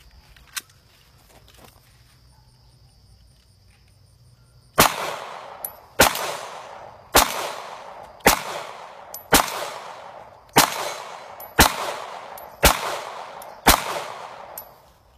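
Nine shots from an Honor Defense 9mm pistol fired at a steady pace, about one a second, starting roughly five seconds in, each crack trailing off in a short echo. Faint insect chirring beneath, heard plainly before the first shot.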